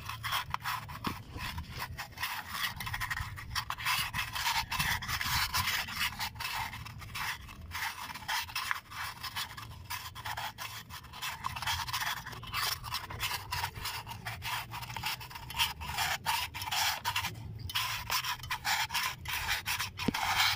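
Sandpaper being twisted by hand inside the bore of an Isuzu NHR's brake wheel cylinder: quick, continuous rubbing and scraping strokes, with a short break near the end. It is sanding out rust inside the cylinder, the cause of scoring that makes the rubber cups leak.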